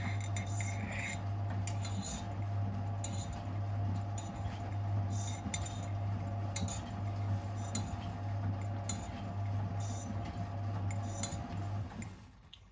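Miele WS 5405 front-loading washing machine tumbling its drum during the main wash, the motor humming steadily for about twelve seconds before stopping for the pause between tumbles. Scattered light clinks come from the jacket and trainers turning in the drum.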